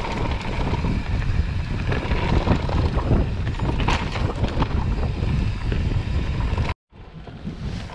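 Mountain bike riding fast down a dirt forest trail: tyres rolling over earth and roots with steady clicks and rattles from the bike, under heavy wind buffeting on the microphone. The sound cuts out abruptly near the end, then comes back quieter.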